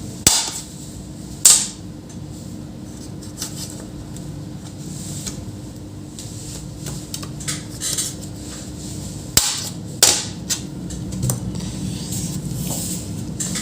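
Scattered sharp clicks and taps from handling a laptop's parts and small tools during a battery replacement, four of them louder than the rest.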